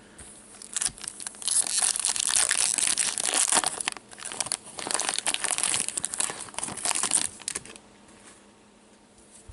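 Foil wrapper of a hockey card pack being torn open and crinkled by hand, a dense run of crackling and tearing that dies away about seven and a half seconds in.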